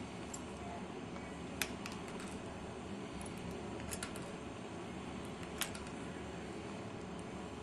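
Wire cutters snipping off the excess ends of the network cable's conductors seated in the connector: a few sharp clicks, the loudest about a second and a half in, others about four and five and a half seconds in, over a steady low hiss.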